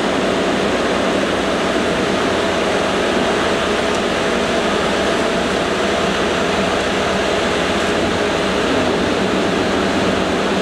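1952 Bullard Cutmaster vertical turret lathe running under power, its table and four-jaw chuck turning at about 43 rpm: a steady mechanical hum from the drive and gearing, with a few faint steady tones in it.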